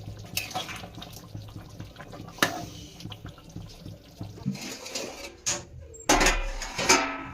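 Kitchen clatter: a few sharp knocks of a utensil against a pot, then a louder stretch of splashing, running water near the end.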